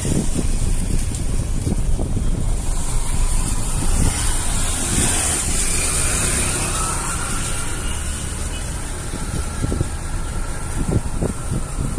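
A motor vehicle passing on the street, its noise swelling and fading around the middle, over a steady rumble of wind buffeting the microphone.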